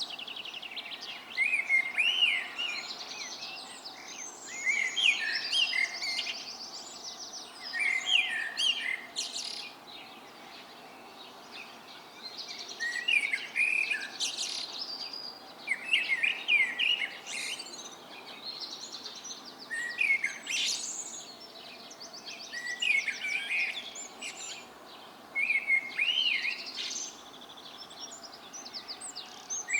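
Dawn chorus of several songbirds singing at once: overlapping phrases of chirps, whistles and quick trills, each lasting a second or two, with a fresh phrase starting every couple of seconds.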